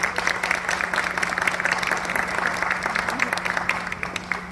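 Audience applauding: a dense, irregular patter of hand claps that dies away near the end.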